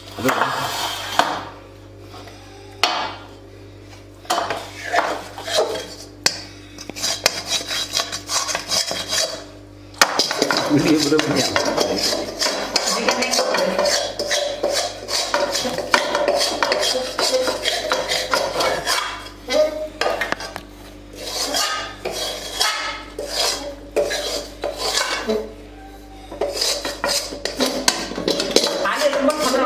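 A steel ladle scrapes and clanks against steel pans and plates in uneven bursts as a thick, sticky ajwain-laddu mixture of ghee and jaggery is scooped out and spread.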